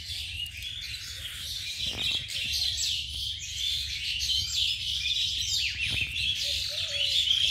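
Many small birds chirping at once in a dense, continuous chorus of quick rising and falling calls, over a low steady rumble.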